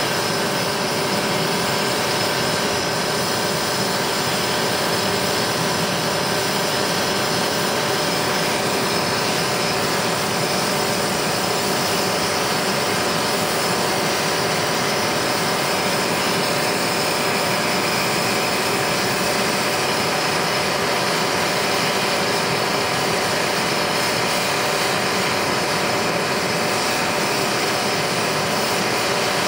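Propane hand torch burning with a steady rush, its flame played on a cast aluminum part being heated for soldering, with a propane camp-stove burner running beneath.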